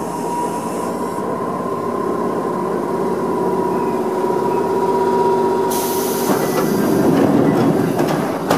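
Onboard equipment of an ex-JNR 101 series electric train standing at a platform: a steady mechanical hum that grows louder. A hiss joins it a little past halfway through.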